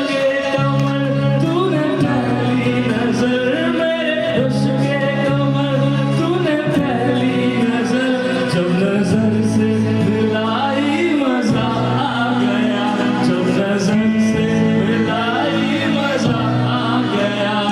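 A man singing a slow, ornamented melody with long sliding lines over steady instrumental backing music.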